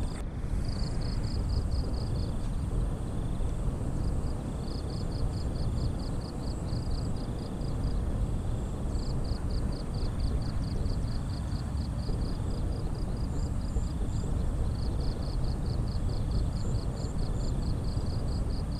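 Outdoor ambience: a steady low rumbling noise under an insect chirping in regular high pulses, about four a second, in runs of a few seconds with short breaks.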